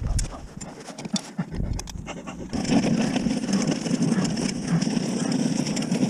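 A person panting heavily through a face mask, like a dog, while pushing a wheeled snow plough over hardened snow. The scrape of the blade and the rolling of the small wheels become steady about two and a half seconds in.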